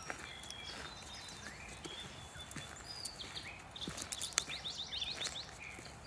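Several songbirds singing and calling, with a fast trill of short down-slurred notes about four seconds in. Footsteps on a sandy dirt path sound underneath.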